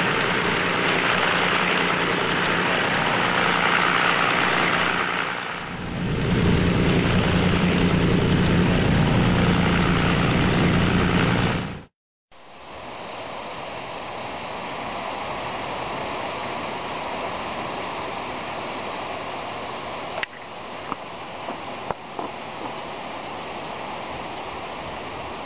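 Aircraft engine drone with a steady low hum under rushing noise, which cuts off abruptly about 12 seconds in. It gives way to a quieter steady rushing noise with a few faint clicks.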